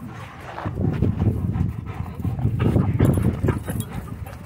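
A German Shorthaired Pointer growling in play as it tugs on a rope toy, in several rough, low bursts.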